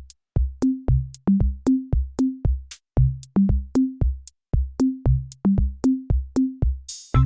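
Electronic background music: a steady drum-machine beat of sharp clicks and kicks over short, bouncing bass notes, with a brief cymbal-like hiss swelling near the end.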